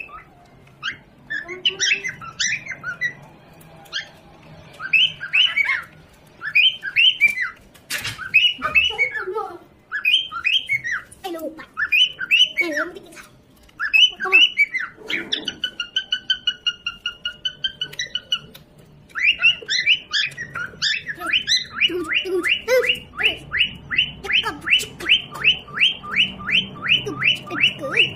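Pet parrot calling: a string of short, sharply falling chirps and squawks, a held whistling note partway through, then a fast, even run of chirps at about three a second.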